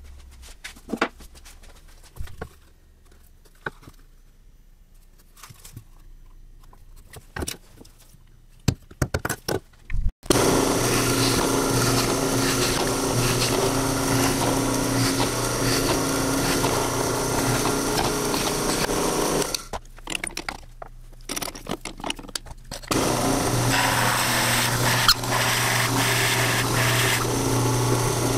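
Light clicks and taps of small tools being handled on a wooden bench. About ten seconds in, a drill press motor starts and runs steadily, boring into plywood. After a short break it runs again, with a large Forstner-type bit cutting into the plywood blank.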